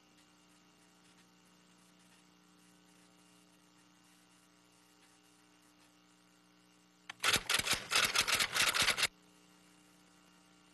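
A faint steady electrical hum. About seven seconds in, a single click is followed by a loud, rapid run of clicks, roughly eight a second, that lasts about two seconds and stops abruptly.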